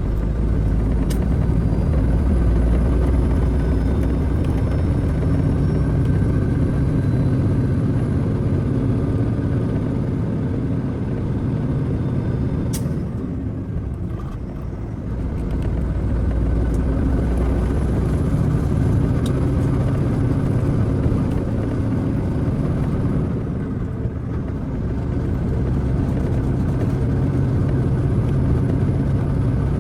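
Semi truck's diesel engine running steadily on the road. It eases off briefly twice, and a faint high whistle rises after each easing.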